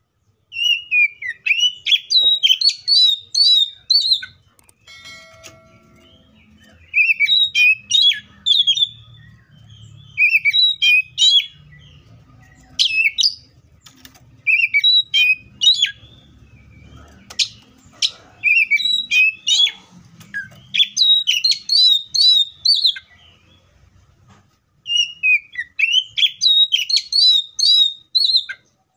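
Oriental magpie-robin (kacer) singing: a run of loud, rapid phrases of varied whistled and chirping notes, each phrase a second or few long, with short pauses between them.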